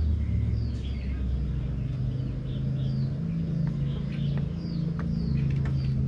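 Birds chirping over and over in short falling calls, over a steady low rumble.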